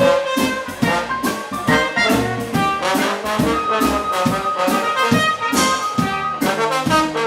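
A live jazz band plays an instrumental passage, with trumpet and trombone lines over a steady beat of regular strikes.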